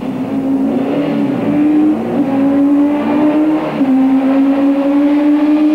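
2-litre Super Touring racing car's engine running hard at high revs as the car comes on, its pitch dipping and climbing again twice.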